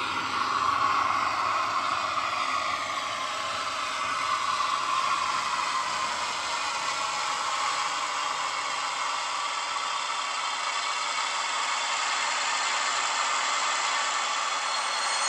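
Sound-decoder recording of a German V200 diesel-hydraulic engine playing through the small speaker of a model Class 42 Warship locomotive as it runs along the track: a steady diesel engine drone without breaks, mixed with the whir and clatter of the running model.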